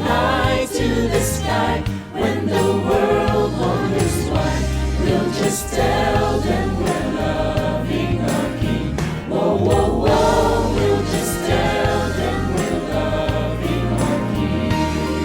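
Christian worship song played by a band, with voices singing over steady bass notes and cymbal hits.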